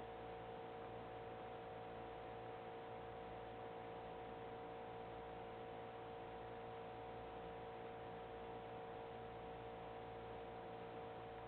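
Faint steady electrical hum with several constant tones over a low hiss, unchanging throughout; no knocks or thumps.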